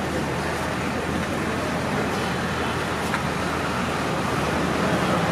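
Steady street traffic noise with a low hum underneath, and a single click about three seconds in.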